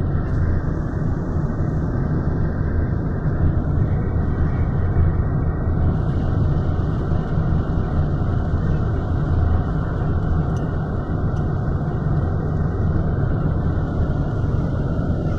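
Steady low rumble of a car driving at freeway speed, heard from inside the cabin: road and engine noise with no change.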